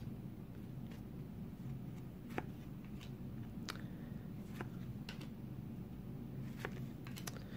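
Stack of Topps trading cards being flipped through by hand: faint, scattered soft clicks, about one or two a second, as card stock slides and taps against the stack, over a low steady room hum.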